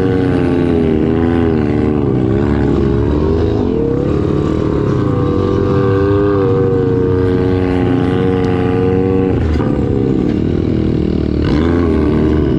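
Pit bike's small single-cylinder four-stroke engine running at low trail speed, its revs rising and falling again and again, with a side-by-side's engine running just ahead.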